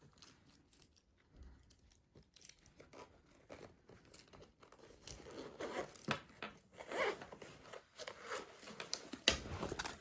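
A parcel being opened by hand: packaging torn and crinkled, with irregular sharp snips and crackles that grow busier after about five seconds.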